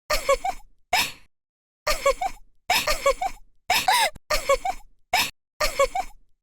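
A cartoon voice making a series of short groaning cries, roughly one a second, with silence between each.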